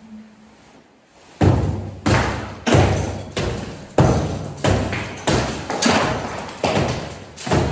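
Hammer blows against a plaster ceiling as it is knocked down, a steady run of sharp thuds about one and a half a second, starting about a second and a half in, each trailing off briefly.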